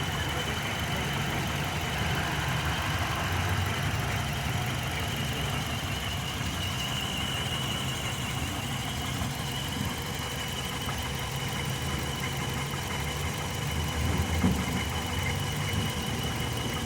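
2005 Hyundai Matrix's four-cylinder petrol engine idling steadily, with a steady high-pitched whine running alongside. The engine has a cylinder 2 misfire (code P0302) and is running rich.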